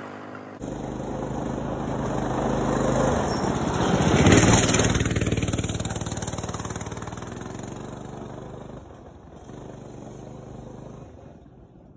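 Coleman CT200U-EX mini bike's 196cc single-cylinder four-stroke engine running under throttle as the bike is ridden. It grows to its loudest about four seconds in, then fades as the bike moves away.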